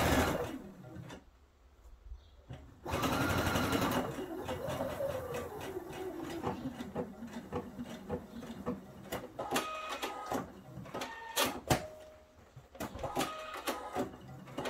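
Pfaff computerized sewing machine stitching a gathered seam: the run stops within the first second, a second short run lasts about a second around three seconds in, then come quieter scattered clicks and brief whirs.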